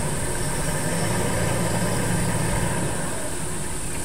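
A vehicle engine idling steadily, with a constant high-pitched insect drone over it.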